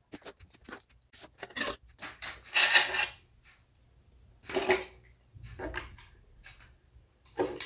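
Craft materials being handled on a tabletop: papers and a cardboard sheet shifted and slid, with scattered small knocks and clicks as tools are picked up and set down.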